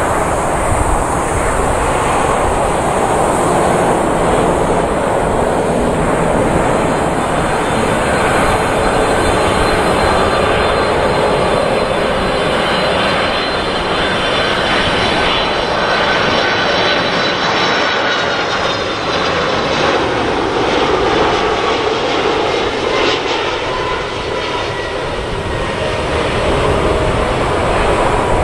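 Boeing 747-400 on final approach, its four jet engines running with a loud, steady roar as it passes close by. A faint engine whine rides over the noise and slides a little lower in pitch in the second half.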